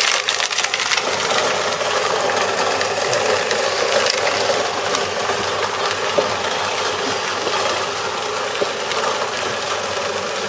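Under-sink food waste disposer switched on, starting suddenly and running steadily as it grinds food waste and water into a slurry, a loud grinding noise full of small rattling clicks from the pieces being smashed.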